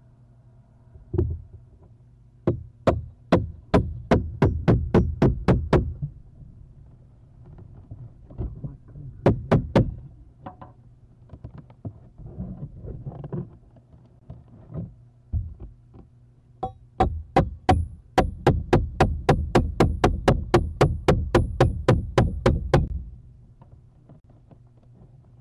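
Rapid, evenly spaced knocks, about three a second, in three runs, the longest in the second half.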